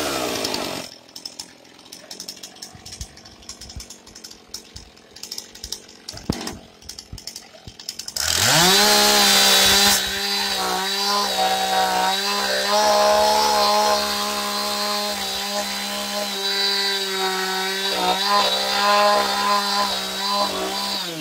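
Gas chainsaw just started: it drops from high revs to idle in the first second and idles for several seconds. About eight seconds in it goes to full throttle and then saws through a log under load, its pitch wavering as it cuts, before dropping off at the end.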